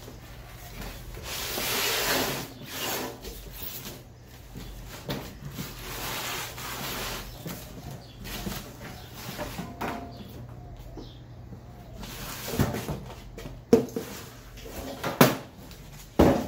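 Cardboard rustling and scraping as a Hobart Handler 125 welder is worked out of its shipping box, then several sharp knocks in the last few seconds.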